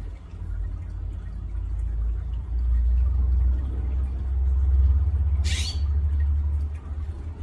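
Low rumble, swelling to its loudest in the middle, with a brief high hiss about five and a half seconds in.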